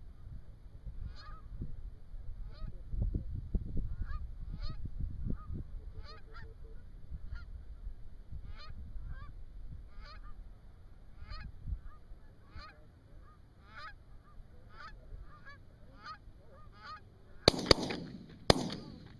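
Geese honking repeatedly as flocks come in overhead, then shotgun shots fired in quick succession near the end.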